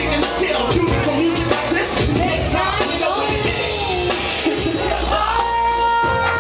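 A live hip hop band playing, with drums and bass under a singing voice that glides in pitch, ending on a held note.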